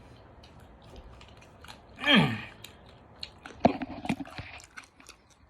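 A person chewing chili cheese fries, with wet mouth clicks throughout. About two seconds in comes a short vocal sound that falls in pitch, and near four seconds a shorter one.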